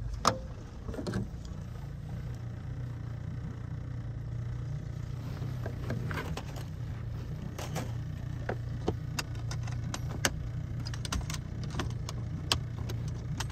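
A small boat's outboard motor running steadily at slow trawling speed as a low, even hum. Scattered sharp ticks and knocks come through it, the loudest just after the start.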